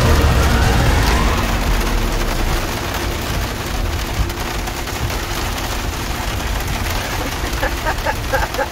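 Heavy rain beating on the roof and windshield of a Jeep Wrangler, heard from inside the cab as a dense patter of hits over the low rumble of the Jeep's engine.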